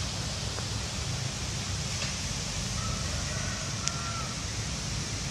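Strong wind gusting through trees, with a steady rush of rustling leaves and a low rumble of wind on the microphone. A single short click about four seconds in.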